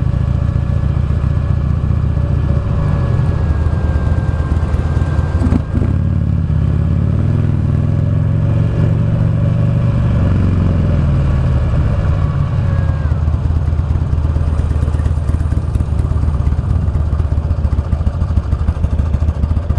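Buell XB12SS's air-cooled V-twin engine running as the motorcycle rolls slowly through traffic, its pitch rising as it pulls away between about 7 and 10 seconds in, then falling back as it eases off. A single sharp knock about five and a half seconds in.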